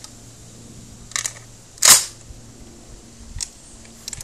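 Franchi semi-automatic shotgun being loaded with shells: a short rattle of metal clicks about a second in, one sharp, louder clack just before two seconds, and a few lighter clicks near the end.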